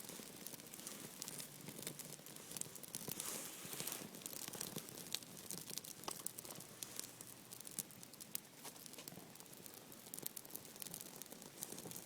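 Dry bark tinder being torn and worked by hand: a steady run of small tearing, crackling and rasping sounds.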